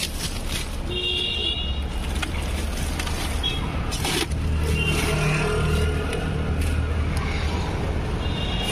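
Road traffic: a steady engine rumble that swells in the middle as a vehicle runs close by, with short high horn beeps about a second in and again at the end. Light crinkling of plastic wrap as the wheel is handled.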